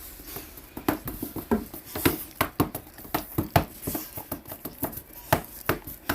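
A dog's claws clicking and tapping on a hard floor, irregular sharp taps a few times a second, as an excited dog moves about.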